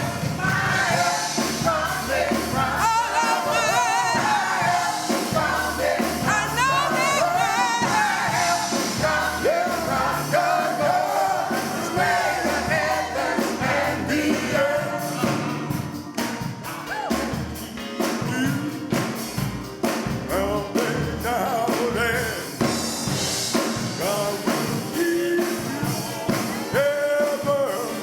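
Gospel music: a church choir singing with a live band of drums and bass guitar keeping a steady beat.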